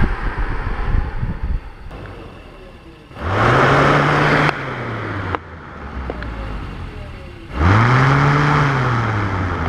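A person snoring: three loud snores about four seconds apart, the first a rough rattle, the next two with a low hum that rises and then falls in pitch.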